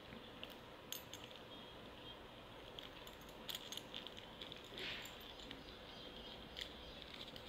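Faint, scattered clicks and clinks of a 40 mm five-lever padlock and its keys being handled, with a short soft rustle about five seconds in.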